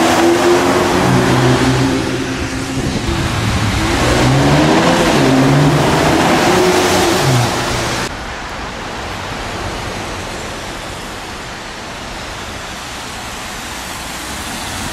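BMW 330i's 2.0-litre turbocharged four-cylinder accelerating hard, its pitch climbing, dropping at a gear change, then climbing again. About halfway in, the sound cuts to a steady, quieter hiss of tyres on a wet road, building slightly toward the end as the car approaches.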